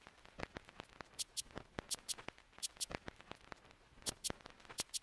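Quiet, sparse intro of an electronic music track: short clicks and ticks, with pairs of brief hissing high hits coming back every second or so.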